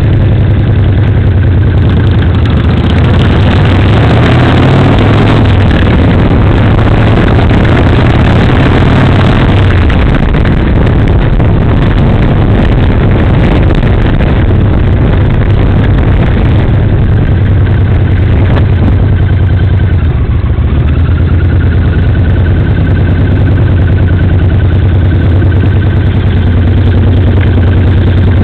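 Motorcycle engine running steadily while riding, with a dense rushing noise over it. About two-thirds of the way in the sound settles to a steadier, slightly quieter note.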